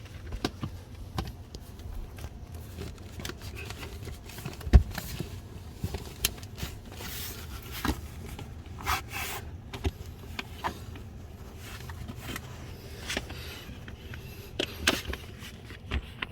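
Hands working a plastic door sill protector and the door-sill trim into place: scattered clicks and taps, a louder knock about five seconds in, and a few brief scraping rustles.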